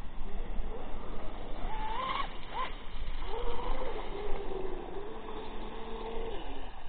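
Electric RC catamaran running on the water, the whine of its 6S brushless motor rising and falling in pitch with the throttle, then holding nearly steady for a few seconds before dropping away near the end, over a hiss of wind and water.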